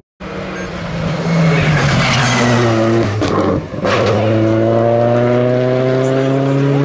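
Rally car engine at full load on a stage. The note breaks off briefly twice around the middle, then climbs steadily as the car accelerates away through the gear.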